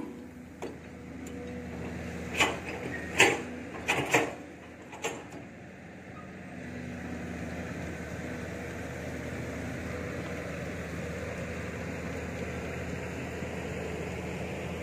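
SK07 long-arm excavator's diesel engine running steadily, with a few sharp metallic clanks between about two and five seconds in; from about six seconds in the engine grows louder as the machine works its hydraulics and swings the bucket.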